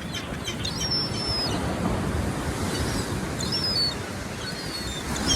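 Big sea waves breaking and washing on the shore in a steady surf roar, with wind. Faint high calls of gulls cut in twice.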